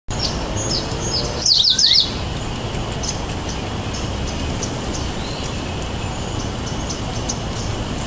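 Small songbirds chirping. A quick run of several sharp, falling chirps comes about a second and a half in, with scattered short high chips over a steady low background noise.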